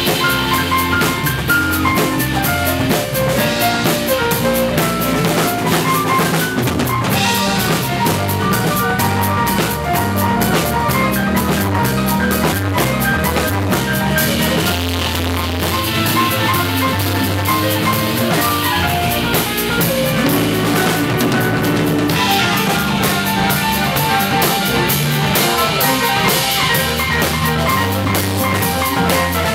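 A live band jamming: an electric keyboard plays a busy run of piano notes over a drum kit and low bass notes, with the cymbals swelling at several points.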